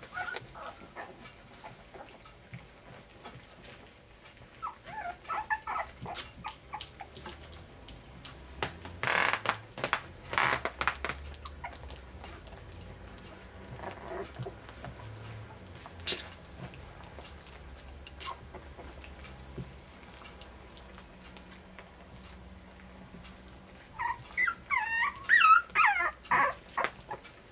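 French bulldog puppies about three weeks old whimpering, squealing and yipping as they scuffle together, in scattered bursts, with the loudest run of high, wavering squeals near the end.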